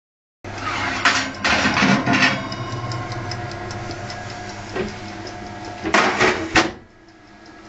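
Oven door and wire rack clanking and rattling as they are handled, in clusters about a second in, once near the middle and again near the end, over a steady mechanical hum. After the last clatter the sound drops to a faint hum.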